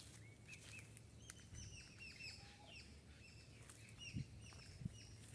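Faint chirping of small birds: many quick, downward-sliding chirps repeated rapidly in close succession. Two soft low thumps come near the end.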